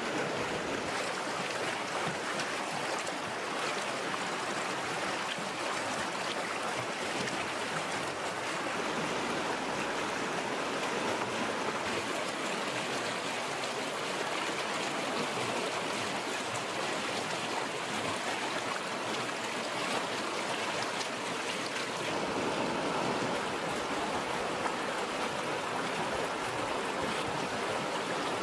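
Shallow stream rushing over rocks: a steady, even rush of water, its tone shifting slightly a couple of times.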